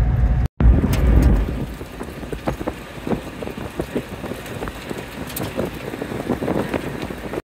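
Inside a small Suzuki four-wheel drive moving along a dirt road: a low road and tyre rumble, loud for the first second and a half, then quieter, with many small rattles and knocks through the cabin. The sound drops out briefly about half a second in.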